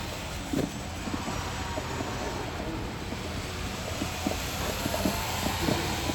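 Small indoor RC model plane's propeller and motor, a faint steady whine that wavers slightly in pitch, over the hubbub of a large hall with scattered knocks.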